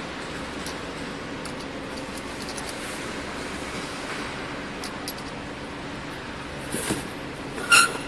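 Metal bobbins and carriers of a wire harness braiding machine clinking and knocking now and then as bobbins are fitted by hand, the loudest clinks about five seconds in and just before the end, over a steady machine hum.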